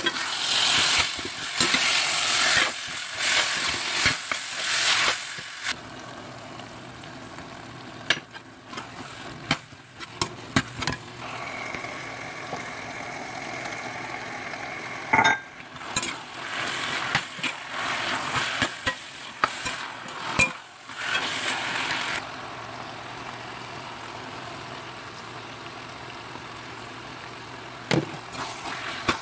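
Ground meat and diced vegetables sizzling in a frying pan as they are stirred, with metal utensil clinks against the pan. The sizzling flares up loudly in the first few seconds and again around the middle, over a steady background noise.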